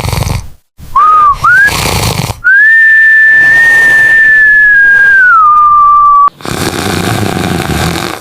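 Loud cartoon-style snoring: a rattling snore, two short whistle chirps, then a long steady whistle on the out-breath that drops in pitch near its end and cuts off abruptly, followed by another rattling snore.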